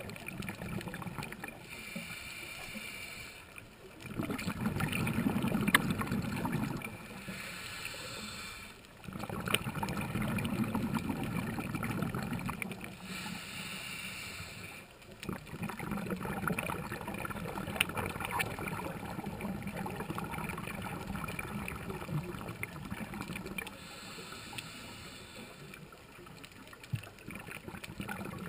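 Scuba diver breathing through a regulator underwater: a short hissing inhale through the demand valve, then a longer bubbling burst of exhaled air, repeated four times.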